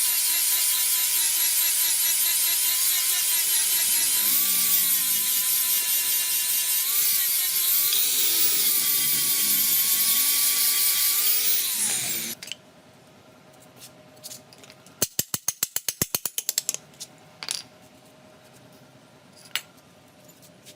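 Electric power tool running under load on a metal hoe head, its motor whine sagging in pitch a few times, then winding down and stopping about twelve seconds in. After it stops come a few scattered clicks and a quick run of about a dozen clicks.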